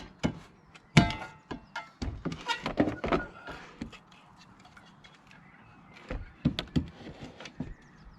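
Hollow thunks and knocks, with some scraping, as a Carver Cascade 2 water heater is worked into its opening in a motorhome's bodywork. One sharp knock about a second in is the loudest, a quick run of knocks follows around two to three seconds, and another few come after six seconds.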